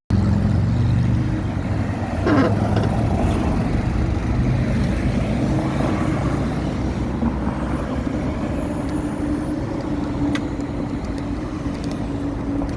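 A vehicle engine running steadily: a continuous low rumble with a steady hum, and one short louder sound falling in pitch about two seconds in.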